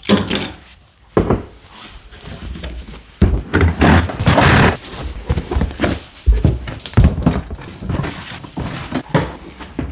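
Workshop handling noise from clamping and bending a large polypropylene sheet: irregular thunks and knocks of bar clamps, straightedge and a tool case, with the plastic sheet rubbing and flexing. The loudest stretch comes about three to five seconds in.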